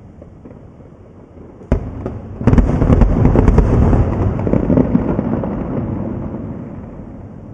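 Aerial fireworks exploding: a sharp bang a little under two seconds in, then a louder burst about half a second later followed by a couple of seconds of crackling. The rumble fades away slowly.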